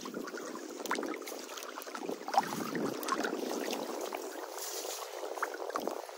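Water lapping and sloshing around people wading chest-deep in a river mouth, with small splashes and drips scattered through it.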